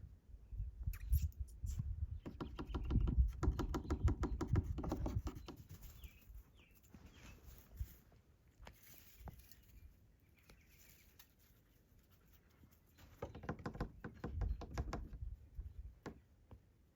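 Pet fox calling in two bouts of rapid, stuttering pitched chatter, a couple of seconds in and again near the end, with scratching and light pattering of movement between them.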